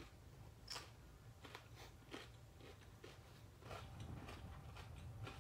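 A person chewing food close to the microphone: faint, scattered wet mouth clicks, a little busier in the last second or two as more noodles go in.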